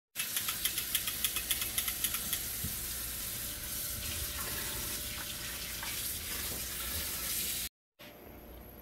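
Pot of boiling water steaming artichokes under a glass lid: a steady hiss and bubbling, with a quick run of ticks, about six a second, over the first two seconds. The sound cuts out briefly near the end and comes back as a quieter hiss.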